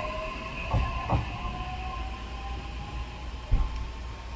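E131 series electric train pulling away, its traction motor whine rising slowly in pitch as it gathers speed over a steady electrical hum. A few low knocks come from the running gear, the loudest about three and a half seconds in.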